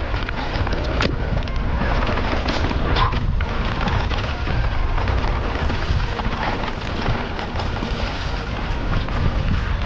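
Mountain bike riding down a rough dirt trail, heard through an action camera. Wind buffets the microphone with a steady rumble, over tyres on dirt and stones and frequent clicks and knocks from the bike.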